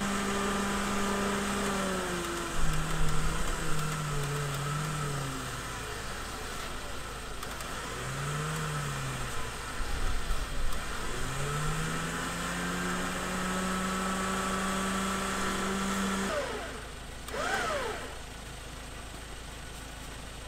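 Winch on a 4x4 pickup hauling in its line to anchor the stuck truck to a tree: a steady motor whine that sags in pitch several times as it takes up load, then stops about sixteen seconds in. A short rising and falling whine follows a second later.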